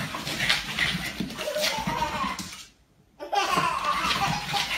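Laughter, with a silent break of about half a second near the middle.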